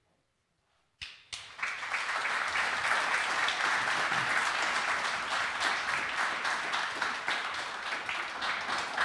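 Near silence for about a second, then a seated audience breaks into steady applause, many hands clapping at once.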